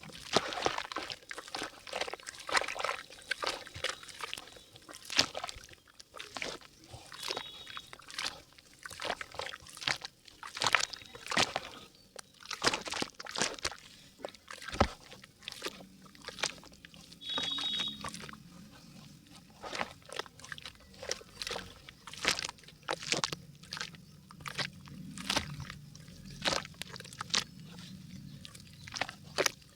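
Dry yellow mud crumbling and softening in water in a clay pot: dense, irregular crackling and crunching with some sloshing of the wet mud.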